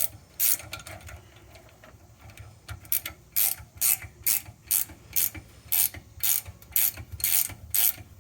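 3/4-inch ratcheting gear wrench clicking as it is swung back and forth on a nut. Its sharp ratchet clicks come about two a second from about three seconds in.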